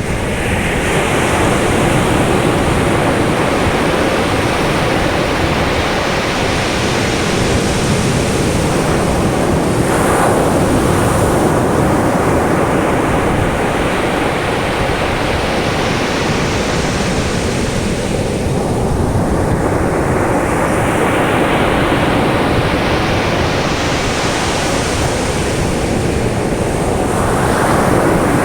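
Caribbean sea surf breaking and washing up a sandy beach: a continuous wash of waves, with a fresh break surging up about every eight to ten seconds.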